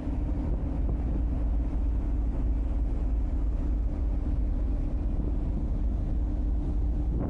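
Steady low rumble of a car ferry under way, heard on its open deck, with a constant hum over it and some wind on the microphone.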